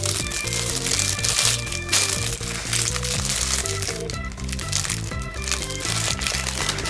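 Background music playing, with a paper crepe wrapper crinkling irregularly as it is handled.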